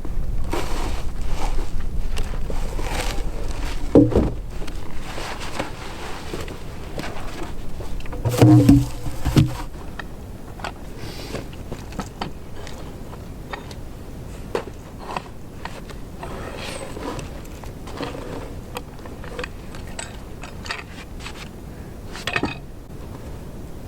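Husqvarna Rancher 455 chainsaw running. It is loudest for about the first ten seconds, with heavy thumps about four seconds in and again around nine seconds, then falls quieter.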